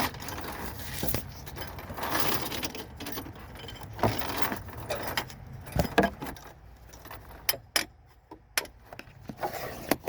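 Keys jangling with handling and rustling noise, then several sharp clicks and knocks in the second half.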